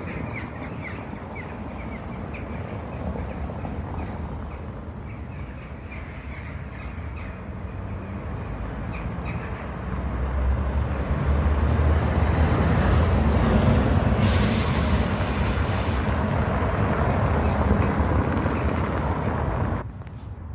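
Road traffic passing on a town street, growing louder about halfway through as a heavy vehicle rumbles by, with a sharp hiss lasting about two seconds in the middle; the sound drops off suddenly near the end.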